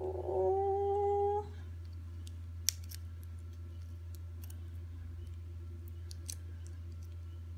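A drawn-out hummed 'mmm' from a woman for about the first second and a half. After it come a few small, sharp clicks of pliers picking at a duck eggshell around a hatching duckling, the clearest about three seconds in.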